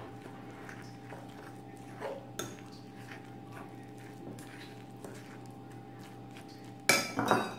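A steel spoon stirring thick flour-and-curd bonda batter in a glass bowl, with light clinks against the glass and a louder flurry of clinks near the end. A steady hum sits underneath.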